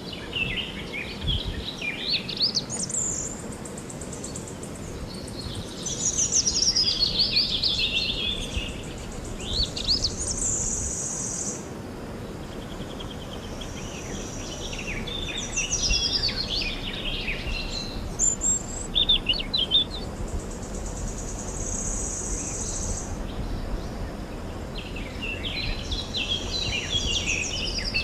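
Several songbirds singing and chirping, with quick sweeping notes and buzzy trills, over a steady background hiss.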